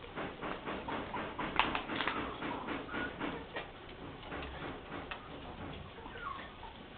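Rapid dry clicks and taps, about four or five a second, thinning out after about four seconds, with a short high chicken call near the end.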